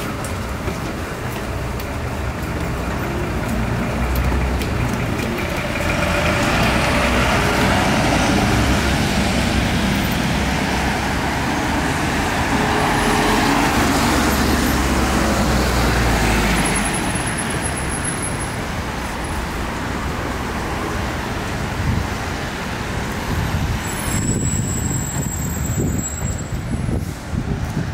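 Road traffic with a heavy vehicle passing: a low rumble swells a few seconds in, stays loudest for about ten seconds, then fades back to a steady traffic hum.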